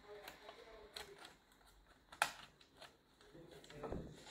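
Light clicks and taps of a tin-plate toy fire engine being handled and turned over in the hands, with one sharper click about two seconds in.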